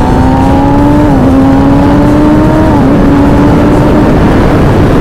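Kawasaki ZX-10R's inline-four engine accelerating hard, its pitch climbing and dropping at two upshifts, about a second in and near the middle. As speed builds, heavy wind noise on the camera microphone takes over from the engine note.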